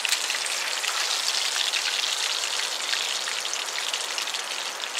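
Battered trout pieces sizzling and crackling in a pan of hot oil, the fish just dropped in; a steady, dense crackle.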